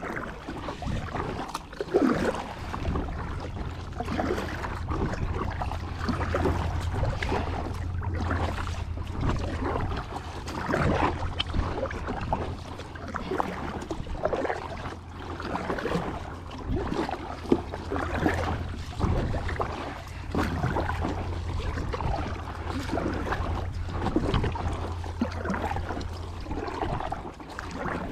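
Water splashing and lapping around a kayak as it is paddled, in irregular strokes every second or so, over a steady low rumble of wind on the microphone.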